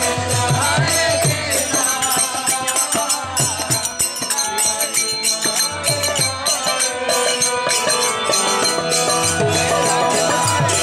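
Kirtan music: voices chanting over a harmonium, with low drum beats and hand cymbals clashing in a steady rhythm.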